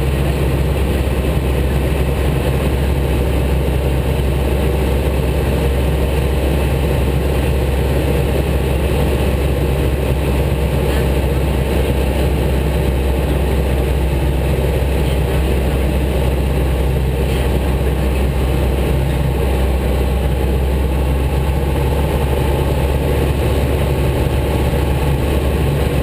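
Single-engine light aircraft's propeller engine droning steadily, heard from inside the cockpit: a loud, even low hum that holds constant.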